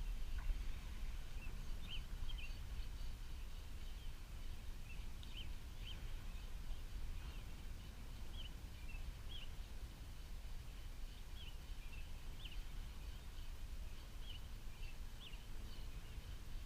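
Steady low wind rumble on the microphone, with short high bird chirps scattered through it, about one a second.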